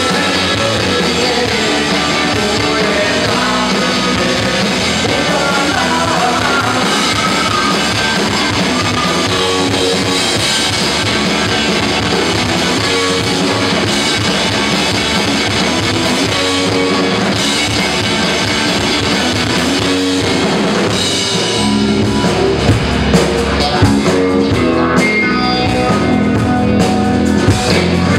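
Live rock band playing loud, with electric guitars over a drum kit. Early on a guitar line glides up and down in pitch, and sharper drum hits come through in the last several seconds.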